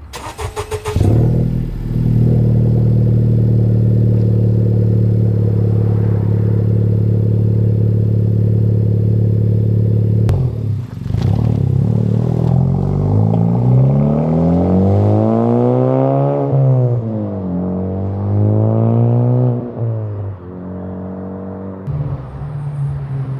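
Honda Civic Type R FK8's turbocharged 2.0-litre four-cylinder through a Greddy DDR resonated exhaust: a steady drone for about ten seconds, then hard acceleration with the pitch climbing and dropping back at each upshift, settling to a steadier lower note near the end.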